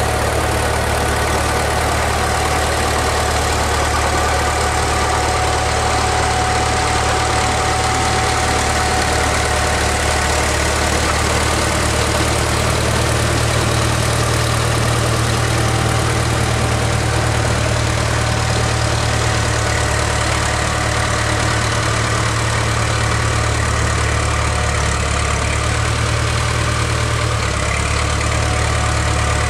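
Caterpillar D4C crawler dozer's diesel engine idling steadily.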